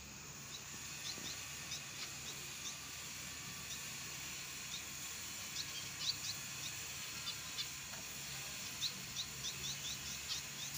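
A flock of pet finches, zebra finches among them, giving many short, high chirps over a steady hiss. The chirping grows busier in the second half.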